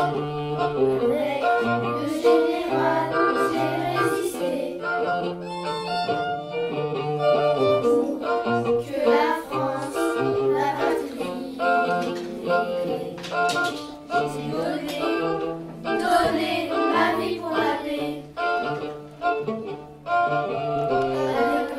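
Music: a song sung in French over instrumental accompaniment.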